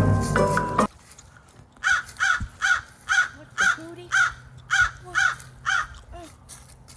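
A crow cawing about ten times in quick succession, harsh repeated calls following a short stretch of music that cuts off about a second in.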